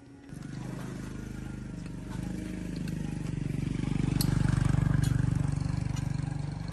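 Small single-cylinder D15 diesel engine running with a fast, even firing pulse. It catches just after the start and speeds up and grows louder toward the middle, then eases back a little near the end.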